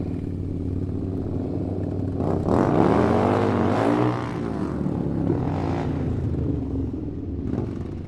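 Motorcycle engine running steadily. About two seconds in it is revved up and down a few times, louder for a couple of seconds, then it settles back to a steady run.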